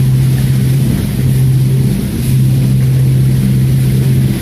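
Canal boat's engine running steadily, a loud low hum, heard inside a stone canal tunnel.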